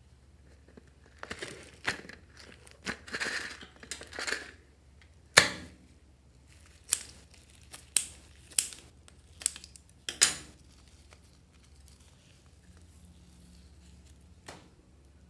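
Crinkling and tearing for a few seconds, then a loud sharp click. Small scissors then snip about five times through a soft foam squishy ball, each cut a short sharp snip.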